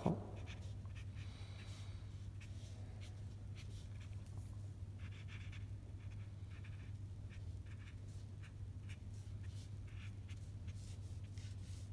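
Faint, short scratchy strokes of a Tombow ABT brush-tip marker colouring small shapes on paper, over a steady low hum.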